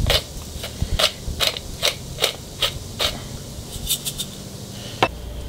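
Hand pepper mill grinding peppercorns: a short crackling rasp with each twist, about two or three a second, stopping near the end.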